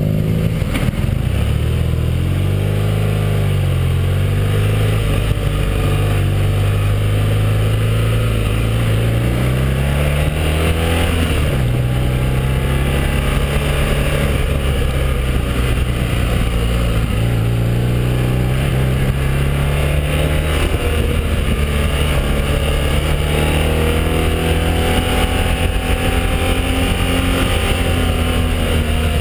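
BMW R1200R boxer-twin motorcycle engine heard from the rider's seat while descending a winding mountain road, its note repeatedly rising and falling as the throttle opens and closes through the bends, with a steady rush of wind noise.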